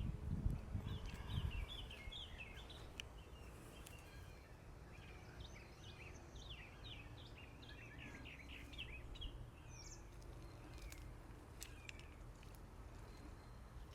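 Small birds chirping outdoors: a busy run of short, quick chirps that thins out after about ten seconds, heard faintly. A low rumble on the microphone in the first two seconds.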